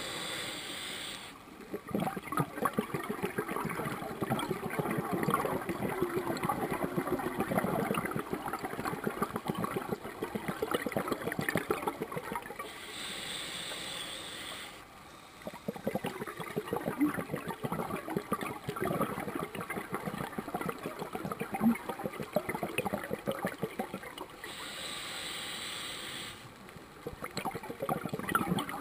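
Scuba diver breathing through a regulator underwater: a steady hissing inhale three times, about every twelve seconds, each followed by a long stream of exhaled bubbles gurgling and crackling.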